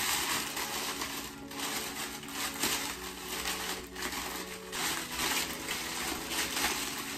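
Brown honeycomb packing paper crinkling and rustling in irregular bursts as it is pulled open and unwrapped by hand.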